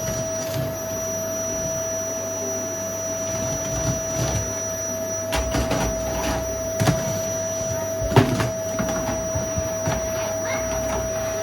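Vacuum cleaner running with a steady whine, with several knocks and clatters over it, the loudest about eight seconds in.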